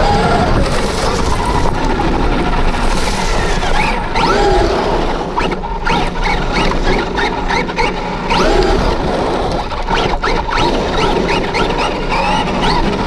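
Electric motor and drivetrain of a Traxxas Rustler 4x4 RC truck on a Castle SW4 speed controller and 3S battery, whining up and down in pitch with the throttle, in many short repeated bursts through the middle. Wind and tyre noise run underneath, with sharp knocks as it crosses rough dirt.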